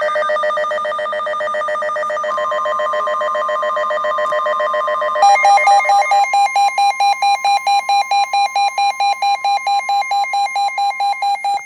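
Emergency Alert System attention tone signalling a severe thunderstorm warning: an electronic alarm that warbles rapidly on several steady tones, then about five seconds in switches to a single beep pulsing about four times a second.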